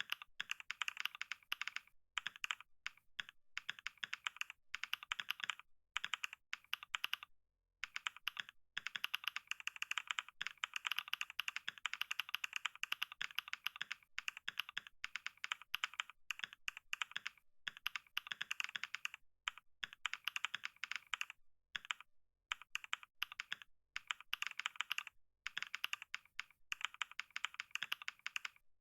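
Fast typing on a computer keyboard: a dense run of keystroke clicks broken by a few brief pauses, the longest about a quarter of the way in.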